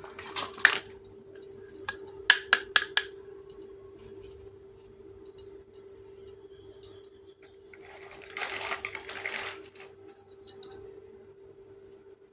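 Small pieces of a toy kitchen set clicking and clinking as they are handled and set down, with a quick run of sharp clinks in the first three seconds and a rustling, scraping stretch about eight seconds in. A steady faint hum runs underneath.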